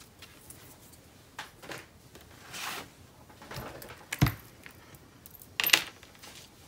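Paper and craft supplies handled on a work table: intermittent rustling and sliding of sheets, with a sharp knock about four seconds in and a brief louder rustle near the end.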